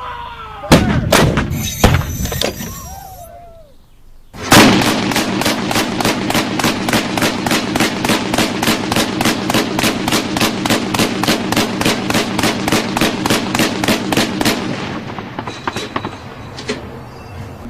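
Gunfire: a few loud single shots in the first three seconds, then a long steady burst of automatic fire at about four to five shots a second lasting about ten seconds, which stops and trails off with a few faint light clinks.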